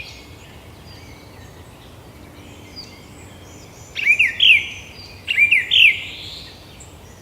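Forest bird ambience: faint background for the first few seconds, then a songbird sings two short phrases of quick, sharply curving whistled notes about a second apart.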